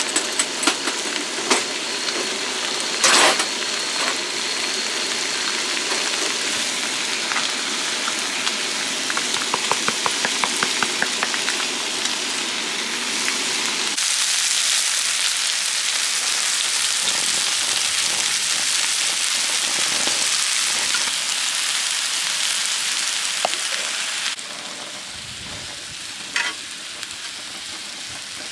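Steady rushing of a mountain stream. The noise changes abruptly about halfway through and grows quieter a few seconds before the end, with scattered clicks and taps in the first half.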